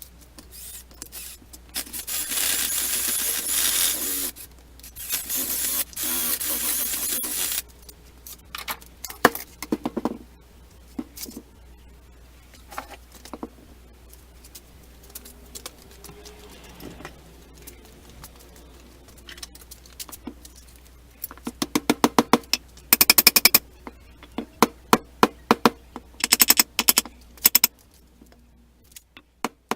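A steady hiss twice near the start, then scattered clicks and knocks, then runs of quick hammer blows on a steel stump anvil, each ringing out with a clear metallic tone.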